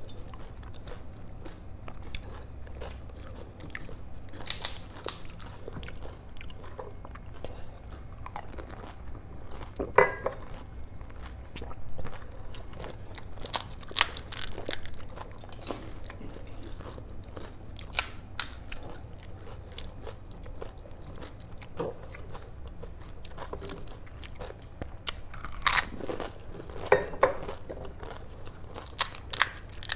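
Pani puri being eaten: crisp fried puri shells crunching as they are bitten, with wet chewing, in irregular scattered crunches, the loudest about ten seconds in and again near the end. A faint steady low hum lies underneath.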